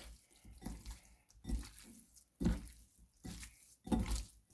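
Hands rubbing seasoning into raw chicken pieces: irregular wet squelches and slaps, a few each second.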